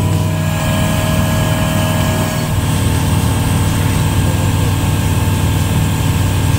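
A light aircraft's engine droning steadily in cruise, heard from inside the cockpit.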